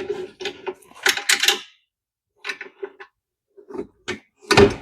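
Metal shop parts being handled and fitted by hand: a run of light clinks and knocks, with one heavier knock near the end.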